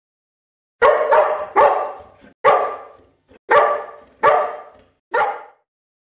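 A dog barking about seven times in a loose series, starting about a second in, each bark fading quickly.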